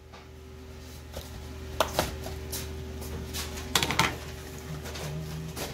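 Light knocks and clatter from hands and utensils on a stainless-steel pizza tray and prep counter: a couple of knocks about two seconds in and a short cluster near four seconds, over a steady low hum.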